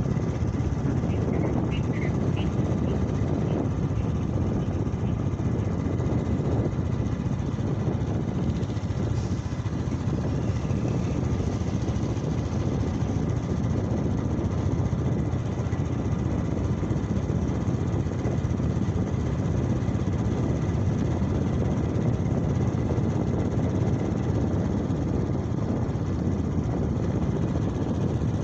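Steady rumble of a motorcycle riding along a highway: engine and road noise mixed with wind buffeting the microphone, at an even level throughout.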